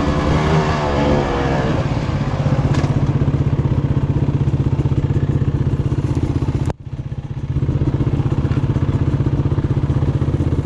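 Two-stroke dirt bike engine (2019 Beta 300RR) revving and falling in the first second or so, then running steadily at low revs with an even, rapid pulse as the bike creeps along. About two-thirds through, the sound cuts out for an instant and then comes back.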